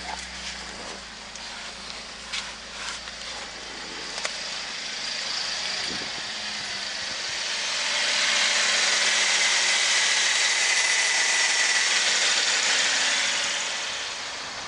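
Holden VF Commodore's LFX 3.6 L V6 running at idle, with a few light clicks early on. About a third of the way in the sound swells and grows brighter for several seconds, then eases off near the end.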